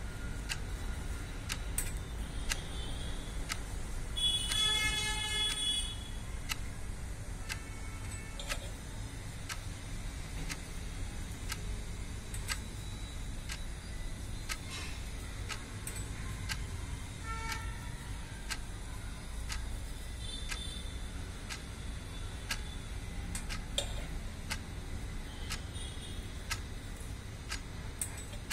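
Clock ticking steadily, about once a second, over a low steady rumble. About four seconds in, a tone with many overtones sounds for under two seconds and is the loudest thing.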